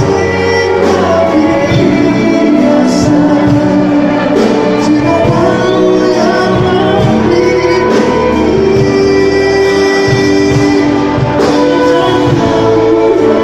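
A male singer performing a pop ballad live into a microphone, accompanied by a string orchestra.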